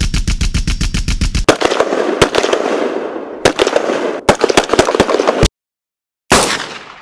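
Automatic gunfire, about ten shots a second, giving way about a second and a half in to denser crackling volleys of shots and blasts. It cuts off suddenly; then a single blast fades away near the end.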